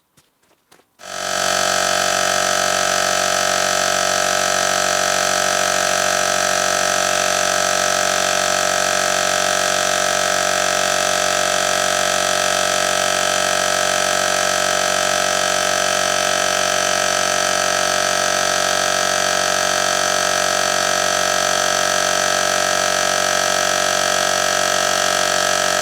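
Small air compressor running steadily while it inflates a tractor tyre's repaired inner tube. It switches on about a second in and holds one even, tonal drone.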